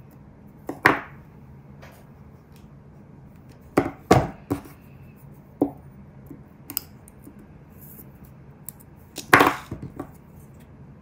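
Metal tweezers and a gold rhinestone chain being handled on a tabletop: a handful of sharp, irregularly spaced taps and clicks, loudest about a second in and again near the end.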